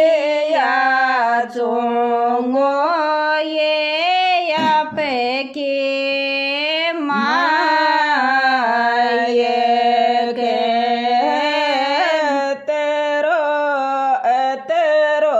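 A woman singing a Rajasthani devotional folk song to Tejaji (Tejaji geet) in a single voice, with long held notes that slide up and down between phrases.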